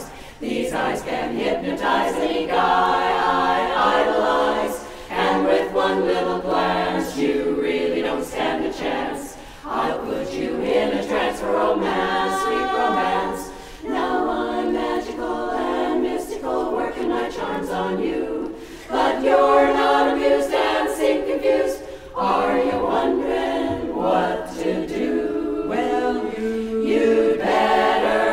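Women's barbershop chorus singing a cappella in close harmony, in phrases of a few seconds broken by brief breaths.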